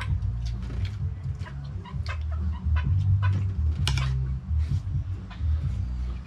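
Chickens clucking in short, scattered calls over a loud low rumble.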